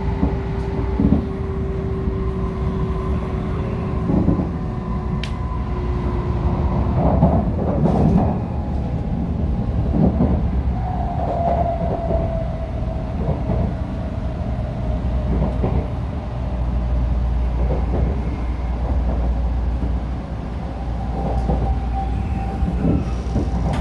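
Sanyo Shinkansen bullet train running, heard from inside the car: a steady low rumble with a few faint whining tones that drift slightly in pitch, and occasional light knocks.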